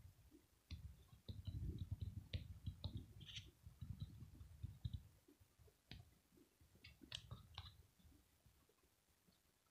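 Faint handling noise close to the microphone as the camera is moved: low rumbling bumps with scattered light clicks, a few more bumps and clicks about seven seconds in, then near silence.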